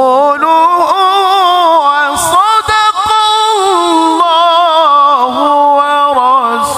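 A male qari reciting the Quran in the melodic tilawah style through a microphone, holding one long, ornamented melismatic line with quick wavering turns. The voice climbs about a second in, stays high, and falls back to a lower pitch after about four seconds.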